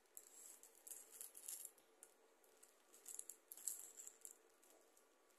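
Faint rattling in short, irregular bursts from a small handheld object being shaken.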